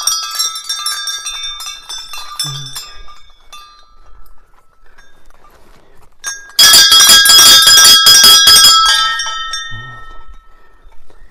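Hanging metal temple bells being rung by hand: repeated strikes with lingering ringing tones that fade over the first few seconds. Then a much louder run of rapid strikes lasts two or three seconds before ringing away.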